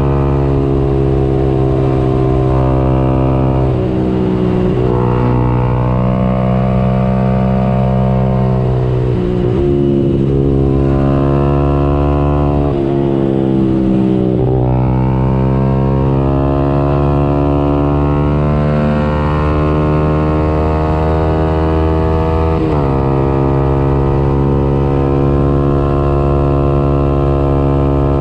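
Yamaha YZF-R 125 single-cylinder four-stroke engine running loud under hard throttle through an aftermarket Radical Racing exhaust with the dB-killer baffle removed. The revs climb, drop sharply and climb again several times as the bike is ridden through the gears.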